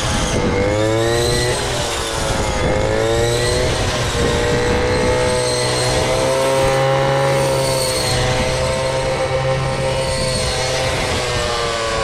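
A combine harvester's engine running steadily, its pitch rising and falling a little as the engine speed shifts.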